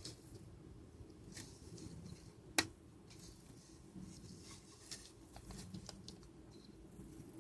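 Faint handling sounds, light rustles and small clicks, with one sharp click about two and a half seconds in.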